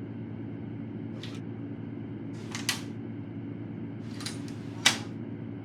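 A steady low hum with four brief, sharp rustling clicks spread through it, the loudest near the end.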